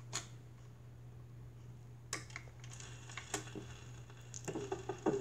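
Old Symphonic record changer cycling: a low steady hum under scattered mechanical clicks as the tone arm swings out over the stacked 45s, with the clicks coming closer together near the end.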